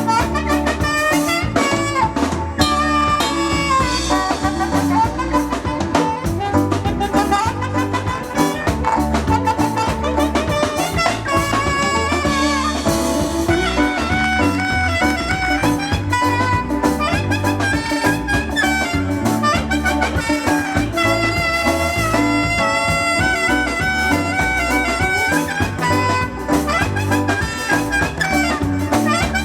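A band playing loud music: a stepping melody line over a steady, driving beat.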